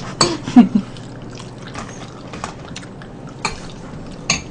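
Scattered sharp clinks of a spoon and chopsticks against bowls while eating, a few light clicks with a louder one near the end, over soft eating sounds.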